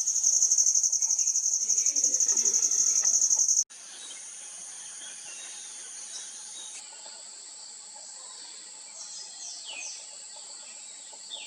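Insects trilling high and loud with a rapid pulse, then after abrupt cuts a quieter, steady high-pitched drone; a few short falling bird chirps come near the end.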